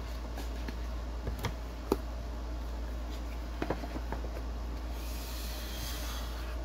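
A Microsoft Surface Duo 2 phone is fitted into its cardboard retail box, making a few light clicks and taps; the sharpest comes about two seconds in. Near the end there is a soft sliding hiss as the box lid slides on. A steady low hum runs underneath.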